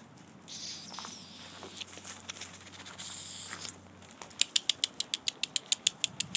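A Yorkshire terrier puppy rustling and crinkling a black plastic bag, in hissy spells, then a quick, even run of sharp crackles, about eight a second, over the last two seconds.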